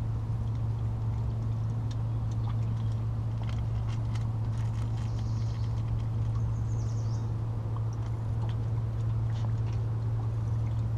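A steady low hum, with scattered light clicks and taps.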